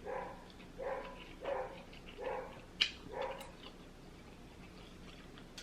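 A dog barking repeatedly, about six short barks less than a second apart, stopping about three and a half seconds in, with a couple of sharp clicks.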